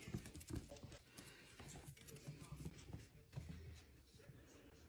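Faint clicks and scuffs of a dachshund puppy's claws on a hard floor as it grabs and carries a plush toy, with a couple of sharper taps in the first second.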